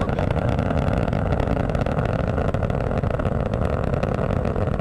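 Space Shuttle Atlantis's solid rocket boosters and main engines during ascent: a steady, deep rumble with dense crackle. Two launches are heard at once, one in each stereo channel.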